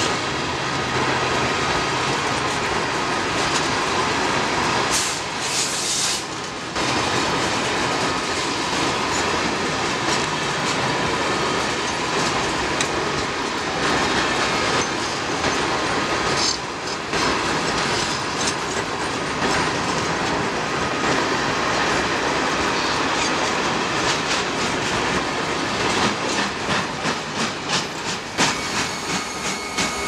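Freight flatcars loaded with steel coils rolling past at close range, their wheels rumbling and clattering over the rail joints, with a thin steady squeal above it. Near the end the clatter turns into a distinct, even clickety-clack rhythm.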